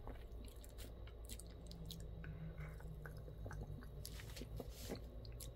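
Faint mouth sounds of sipping and swallowing carbonated soda, with scattered small clicks.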